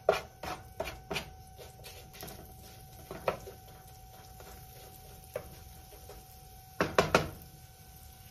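Wooden spatula scraping and stirring chopped onion and garlic in a nonstick frying pan: quick regular strokes, about two to three a second, for the first second and a half, then occasional light scrapes, and a short flurry of louder strokes about seven seconds in. A faint steady hum lies underneath.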